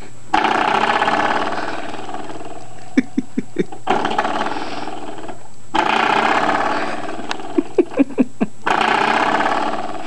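Coiled-spring door stopper flicked three times, each time a buzzing boing that fades over two or three seconds. Between the twangs come a few light clicks and taps of the spring.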